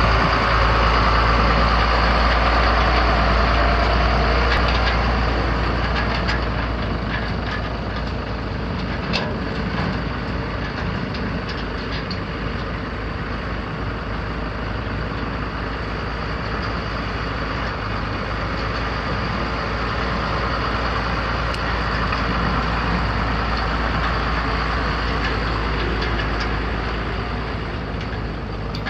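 Cummins ISB 5.9-litre six-cylinder diesel of a 1998 Ford F800 dump truck idling steadily, a little louder for the first several seconds, with a single sharp tick about nine seconds in.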